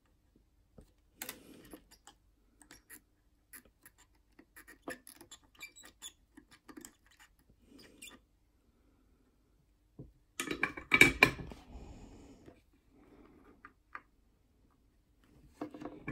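Small clicks, taps and scrapes of hands working with a soldering iron and wires on a guitar pickguard's volume pot. A louder burst of scraping and rustling lasts about two seconds just past the middle, and a shorter one comes at the very end.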